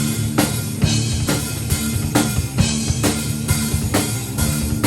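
Rock song instrumental passage between vocal lines: a steady drum beat about two to three hits a second over bass and guitar, with no singing.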